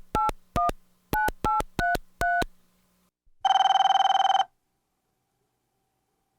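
Touch-tone telephone keypad dialing about seven digits, each press a short two-note beep, followed about a second later by a single telephone ring lasting about a second.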